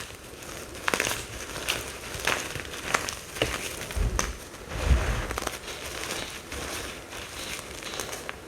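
Mica powder bombs crunching and crumbling as they are crushed, with irregular crackly clicks and a couple of soft low thumps about four and five seconds in.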